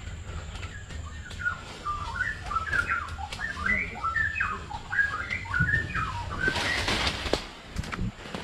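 A bird singing a rapid, varied run of short chirps for several seconds, over a low rumble and the clicks and rattles of a mountain bike on a dirt trail. A short hiss comes about seven seconds in.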